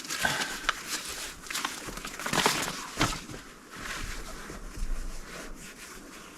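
Rustling and irregular clicks and knocks of hiking gear being handled, with the loudest clatter about two and a half to three seconds in.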